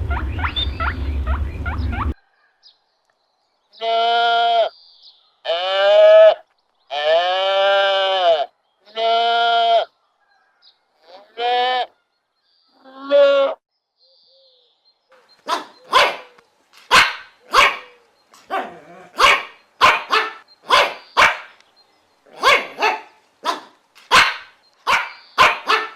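Farm animal calls. First a brief noisy stretch, then four long, wavering bleat-like cries and two shorter ones, then a quick run of short, sharp bark-like calls about twice a second.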